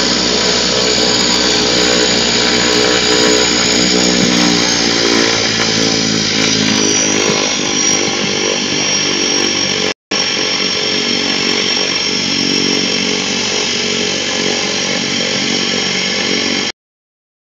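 Small propeller airplane's engine running steadily while taxiing, heard loud from inside the cockpit. The sound drops out for an instant about ten seconds in and stops shortly before the end.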